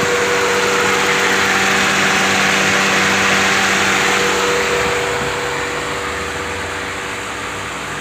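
Chevrolet Chevy's electric radiator cooling fan running, a steady rush of air over the hum of the idling engine; the rush eases a little about five seconds in. The fan has switched on at about 95 °C, the sign that the newly fitted fan temperature switch works.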